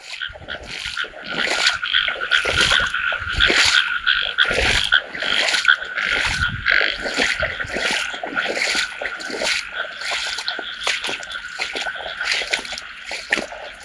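Frogs calling in a chorus, dense rapid croaking over a steady high trill. A few low thumps come in about three to five seconds in.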